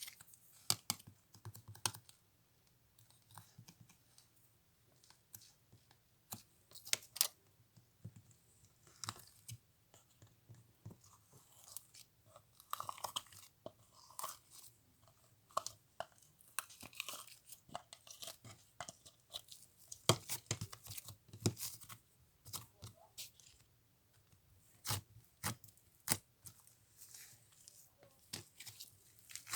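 Gelato-type slime being pressed, stretched and squished by hand: irregular sticky crackles, clicks and small pops.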